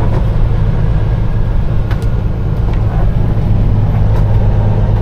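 Peterbilt 389 semi truck's diesel engine droning steadily, heard from inside the cab, with a few faint clicks.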